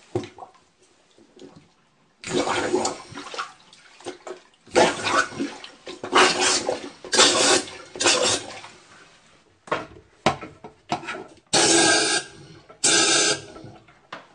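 Compressed air blown in a series of short bursts through a toilet plunger with a hole in it, pressed into a toilet bowl, forcing the water out of the toilet's trap with rushing air and water. The bursts start about two seconds in, and the last two are the loudest.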